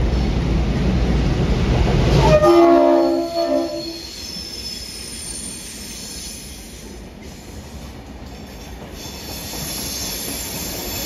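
Two NSW 42 class diesel-electric locomotives, EMD 16-567C two-strokes, passing close with a heavy engine rumble, then a short multi-tone horn blast about two and a half seconds in. The carriages then roll past with high-pitched wheel squeal on the curve, growing louder near the end.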